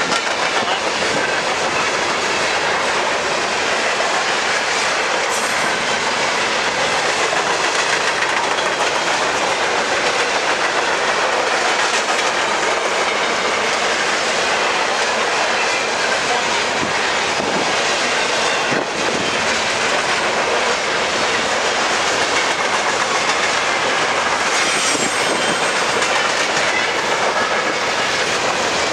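Freight train of flatcars loaded with boxy containers rolling past, the steady loud noise of steel wheels running on the rails.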